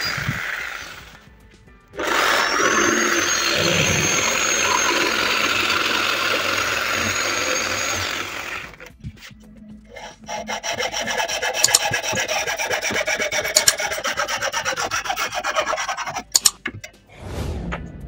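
Electric jigsaw cutting through wood. It stops about a second in, then runs again for about six seconds with a steady high whine. Then a hand saw cuts the wood in rapid back-and-forth strokes for about six seconds.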